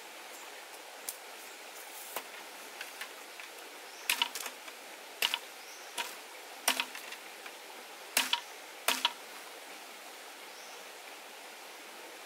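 Green bamboo being split and worked with a blade: a string of sharp cracks and clicks, sparse at first and louder from about four seconds in. The steady rush of a stream runs underneath.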